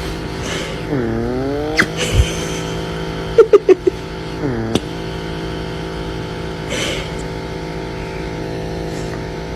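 A motor running with a steady hum. Its pitch dips and recovers about a second in and again around four and a half seconds in, as if briefly loaded, with a few sharp clicks.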